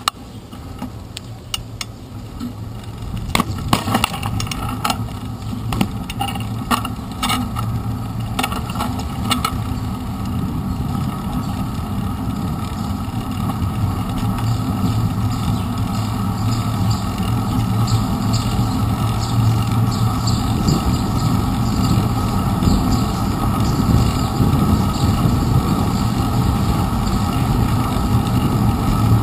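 Bicycle riding over wet pavement, heard from a handlebar-mounted camera: a run of knocks and rattles in the first several seconds as it bumps along, then a steady rumble of tyres and wind that grows louder as the bike picks up speed.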